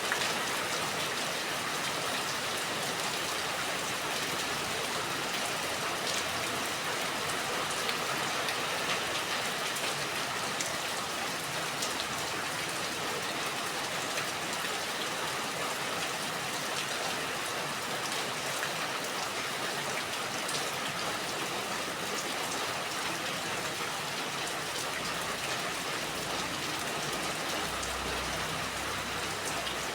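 Steady rain falling, an even hiss with many small drop ticks on a hard surface.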